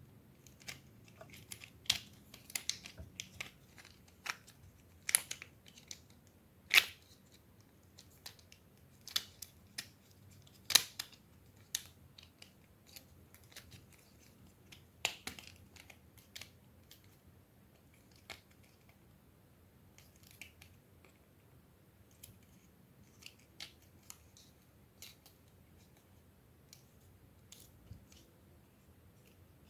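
Sharp plastic clicks and snaps from a toy transforming robot being handled and its parts moved, coming at irregular intervals and thinning out after about fifteen seconds.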